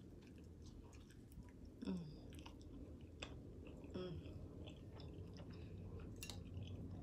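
A person chewing a mouthful of food close to the microphone, with wet mouth clicks and lip smacks throughout and two short falling hums of enjoyment, about two seconds and four seconds in.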